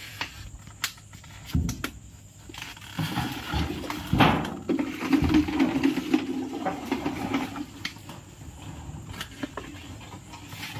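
Scattered knocks, clicks and rustles of debris and wooden boards being handled. There is a louder knock about four seconds in, then a low steady hum for a few seconds.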